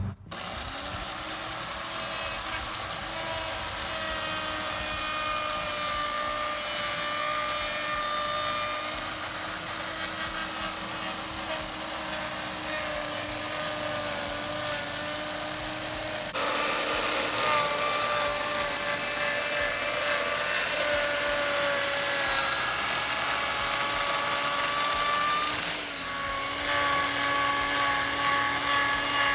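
Electric power tool running with a steady whine while working wood. The pitch drifts slightly, and the sound changes abruptly twice, about halfway through and near the end.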